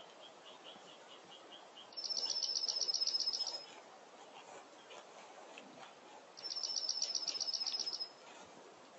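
Songbird singing two fast trills on a single high pitch, each about a second and a half long and a few seconds apart. Fainter, slower repeated chirps from another bird are heard in the first couple of seconds.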